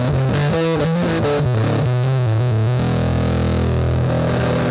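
Electric guitar played through a Headrush pedalboard's Tri-Fuzz distortion, set crushy, giving a dirty fuzz tone. It plays a quick run of notes, then a chord is held ringing from about three seconds in.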